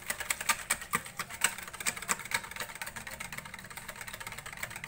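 A spoon stirring a thick mayonnaise-and-cream dressing in a bowl, with quick, irregular clicks of the spoon against the bowl.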